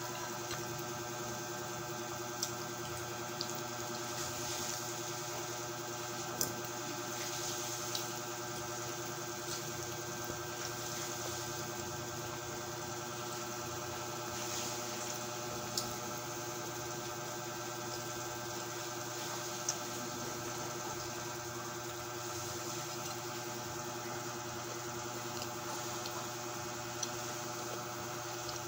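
A steady mechanical hum on several fixed pitches, unchanging throughout, with a few short sharp clicks scattered through it.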